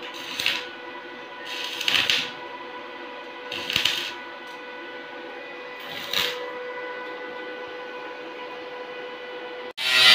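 TIG welder tacking stainless steel railing tubes: four short hissing bursts of the arc over the first six seconds, above a steady electrical hum. Near the end the sound cuts out and guitar music comes in.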